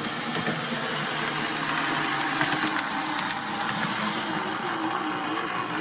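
Old Mantua 0-4-0 tank engine model locomotive running steadily in reverse along the track: its small electric motor and gearing whir, with light clicking from the wheels.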